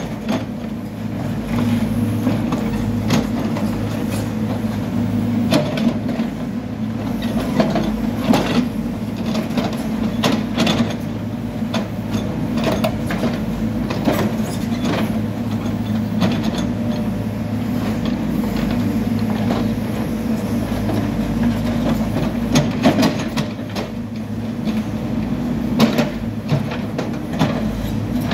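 Hidromek backhoe loader's diesel engine running steadily under load while the backhoe digs, with frequent short knocks and scrapes from the bucket working through soil and stones.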